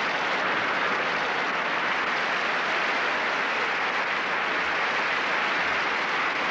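Large theatre audience applauding steadily, a dense even clatter of many hands.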